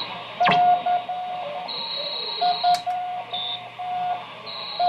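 Morse code on the 40-meter amateur band from a Hammarlund HQ-150 tube receiver's speaker: a single beeping tone keyed on and off in dots and dashes over band hiss, narrowed by the crystal filter. A second, higher tone comes and goes in longer stretches, and there is a sharp static crackle about half a second in.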